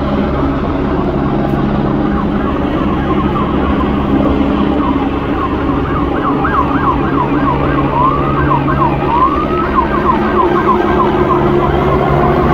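Police car sirens sounding, switching between a slow rising-and-falling wail and a fast yelp, over a steady low engine drone.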